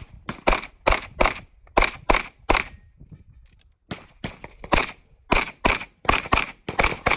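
Rapid fire from an Open-division competition pistol: fast strings of sharp shots at about two to three a second, a pause of about a second just under halfway through, then fast shooting again.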